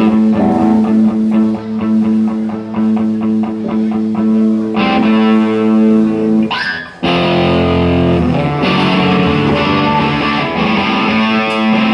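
Electric guitar playing repeated notes. After a brief break about seven seconds in, the sound comes back fuller and louder, with more low end.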